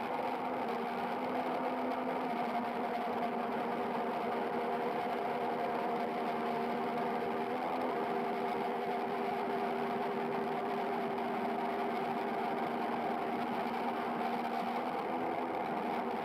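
Waverunner Mark 3 bait boat's electric drive motors and propellers running steadily, heard through the underwater camera on the boat. The pitch shifts slightly about eight seconds in and again near the end.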